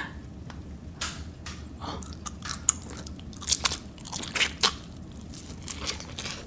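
A person chewing a big mouthful of food close to the microphone, with irregular crunches and clicks.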